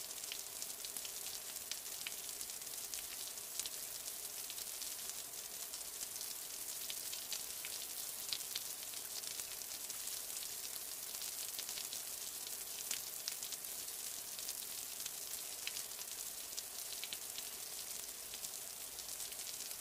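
Heavy wet snow falling: a steady hiss with many fine ticks of flakes landing, like light rain.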